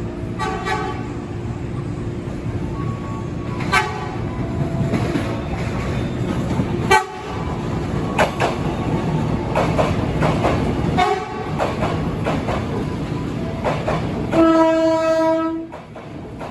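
A train running through a station: a steady rumble, with wheels clacking sharply over rail joints and points every few seconds, some with a short metallic ring. Near the end the train's horn sounds once, a single steady tone held for just over a second.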